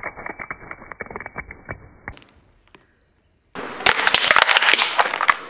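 Objects cracking and crunching as they are crushed under a car tyre: a run of muffled snapping clicks, a brief near-silent gap, then a louder burst of crackling and crunching about three and a half seconds in.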